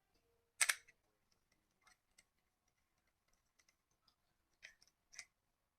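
Sharp plastic clicks from handling a toy pistol: one loud click about half a second in, a few faint ticks, then two more clicks near the end.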